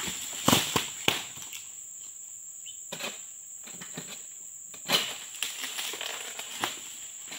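A high, steady insect drone, typical of a tropical plantation, that drops out for about three seconds in the middle and then resumes. Over it come a few sharp knocks and rustles from the long-pole harvesting sickle (egrek) working among the palm fronds, loudest about half a second in.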